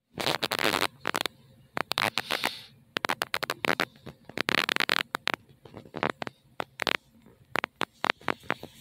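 Handling noise: irregular scratchy rustles and sharp clicks of the camera being held and moved close to its microphone.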